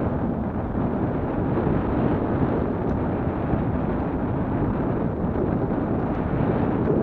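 Wind buffeting the microphone of a bike-mounted camera on a moving recumbent bicycle: a steady, low rushing noise.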